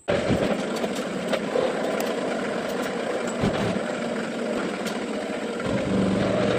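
A machine running steadily: a loud mechanical noise over a low hum, with a few light clicks. It starts and stops abruptly.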